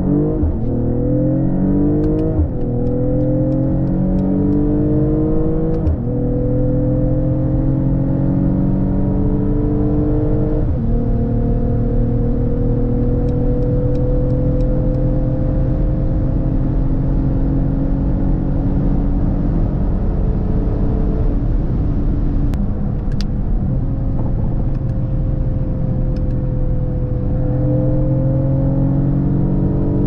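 Mercedes-AMG GLE 53's turbocharged 3.0-litre inline six under hard acceleration. Its pitch climbs and drops with quick upshifts about 2, 6 and 11 seconds in, then rises slowly through a long pull in a higher gear.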